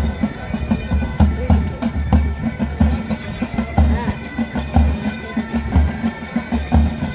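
Military pipe band playing: bagpipes with their steady drones and melody over a regular bass drum beat.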